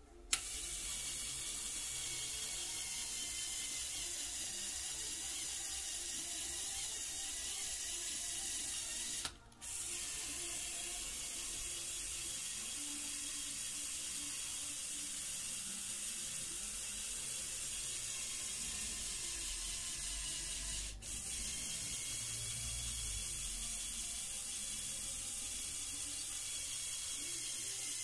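Lego Technic 8297 Off-Roader's electric motors and plastic gear train switched on with a click and running with a steady high whir. The whir stops briefly about nine seconds in and dips again for a moment around twenty-one seconds in.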